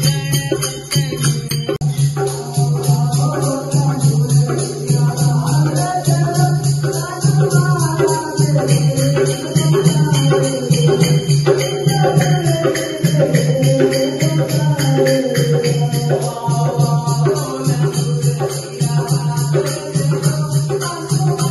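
Devotional kirtan music: voices singing a bhajan to a fast, steady jingling beat from hand percussion, over a steady low drone.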